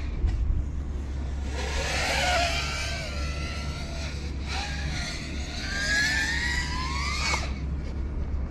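FPV freestyle quadcopter's brushless motors and propellers whining, the pitch sweeping up and down as the throttle changes. The whine climbs from about five seconds in and drops away sharply near the end, over a steady low hum.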